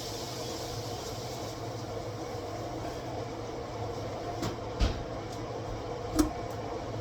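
Steady hum of a kitchen appliance, with a few short knocks of cookware about four and a half, five and six seconds in.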